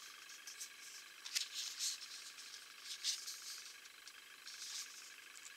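Faint rustling of paper and card as illustrated cards and the pages of an artbook are handled, in several short rustles over a steady faint background hiss.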